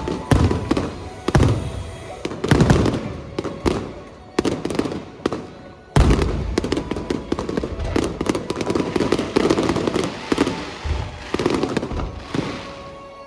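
Aerial fireworks shells bursting in rapid succession, deep booms mixed with crackling, with a sharp loud burst about six seconds in; the bursts thin out near the end.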